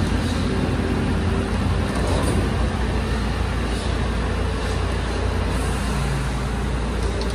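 Rear-loading garbage truck's diesel engine running steadily with a low drone while its rear bin lifter works.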